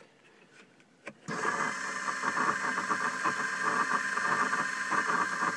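A click about a second in, then a 24-volt e-bike gear reduction motor starts and runs steadily with no load at 24 volts, a loud whine with a fast gear rattle. It is obnoxiously loud, which the owner puts down to the gears.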